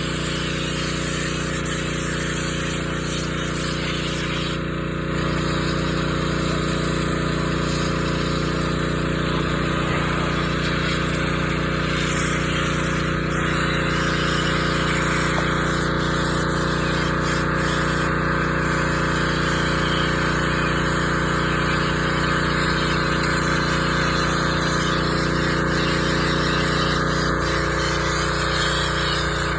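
Pressure washer running steadily: the even hum of its motor and pump, with a hiss of water spray over it.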